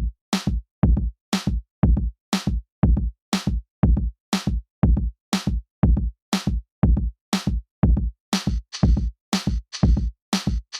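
Electronic background music built on a drum-machine beat, with a hard, deep hit about once a second and lighter hits between. A hissing cymbal layer joins about eight seconds in.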